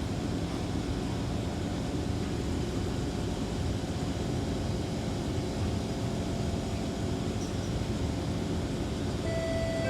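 Kawasaki C151 MRT train standing at a station, with a steady low hum from its air-conditioning and auxiliary equipment. Near the end a chime of two descending notes begins, the warning that the doors are about to close.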